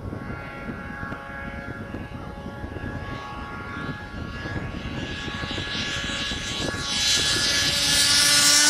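Turbocharged Ski-Doo 580 cc two-stroke snowmobile engine running hard at a steady, high pitch. It grows steadily louder as the sled approaches flat out across the snow, and is loudest at the end.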